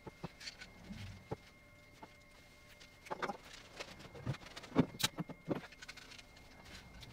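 Scattered knocks, clicks and rustling of a person moving about a workshop and handling things, with a sharp click about five seconds in.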